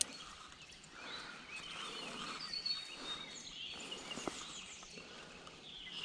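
Quiet outdoor ambience with birds chirping faintly in the background, and a couple of soft ticks about three and four seconds in.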